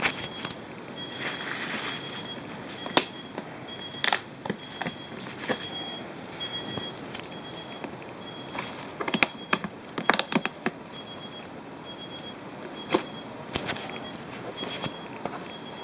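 Clear plastic clamshell lid of a rotisserie chicken container clicking and crackling as it is handled, in scattered sharp clicks. A faint, high-pitched electronic beeping repeats in short pulses throughout.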